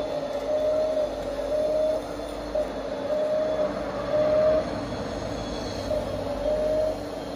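Radio-controlled model construction vehicle running, with a high squeal that comes and goes every second or two.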